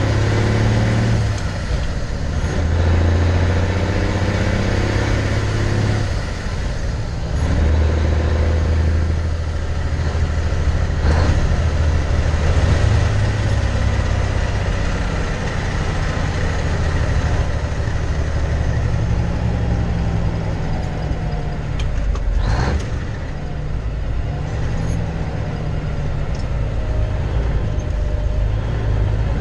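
Cab interior of a 352 Peterbilt cabover semi under way: its diesel engine drones loudly, with road noise. The engine note breaks off and changes pitch a few times as the driver shifts gears, and there is a short sharp sound about two thirds of the way through.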